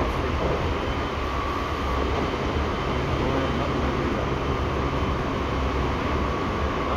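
Seibu 6000 series electric train with Hitachi GTO inverter, heard from inside the car while running: a steady low rumble of wheels and motors with a thin, steady high whine.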